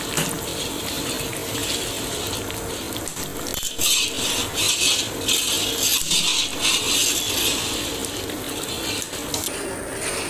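A long metal spatula scraping and stirring a wet mixture of milk curds and sugar around a large iron karahi in irregular strokes, over a steady low background noise.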